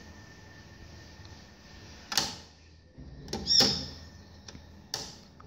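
Mechanical clunks and clicks from the turntable of a Sharp CMS-R260CD stereo system as its tonearm and controls are worked by hand. Three knocks about two, three and a half and five seconds in; the middle one is the loudest and carries a brief squeak. Under them is a faint steady hum.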